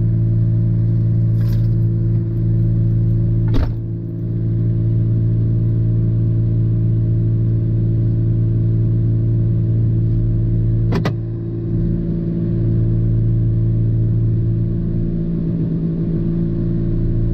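Truck engine idling steadily, heard from inside the cab, with two sharp clicks, one a few seconds in and one about two-thirds of the way through.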